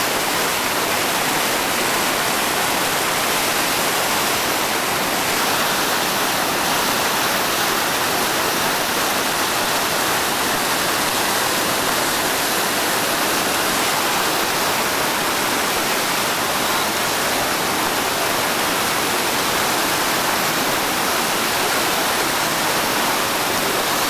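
Whitewater rapid rushing steadily over and between boulders, a loud continuous wash of water.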